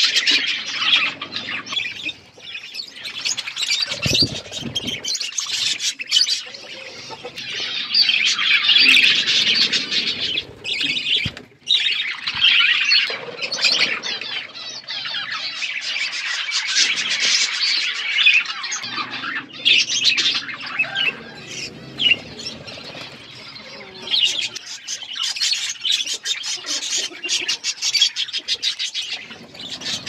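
A flock of budgerigars chattering: many overlapping high chirps, warbles and squawks, with brief lulls.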